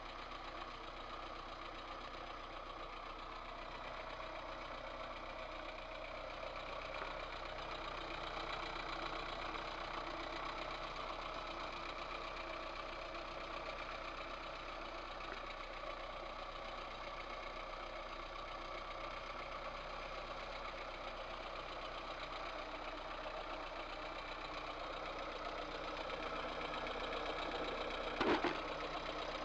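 VAZ 2108 1.3-litre four-cylinder engine idling with a knock from the cylinder head, which the owner traces to two valves with large play in their guides. A single louder thump comes near the end.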